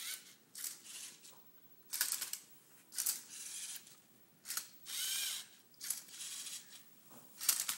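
Lego Mindstorms NXT Tilted Twister robot solving a Rubik's cube: its motors whir and its plastic arm and turntable clack in about ten short bursts as it flips, holds and turns the cube, with a longer whining turn about five seconds in.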